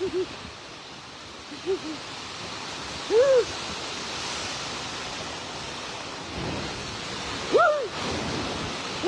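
Strong storm wind blowing as a steady rushing noise that swells louder around the middle, with a few short vocal cries cutting through.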